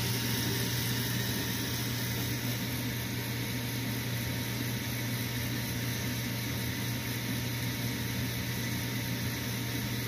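Gas furnace draft inducer motor running with a steady hum.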